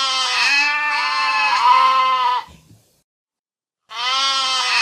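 A goat bleating: one long call of about three seconds that wavers in pitch in three pulses, then a second, matching call begins near the end.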